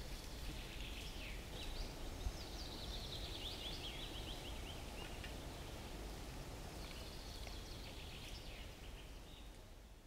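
Songbirds singing in a spruce forest: a run of rapid high notes falling in pitch in the middle, and another near the end, over a faint steady background. The sound fades out at the end.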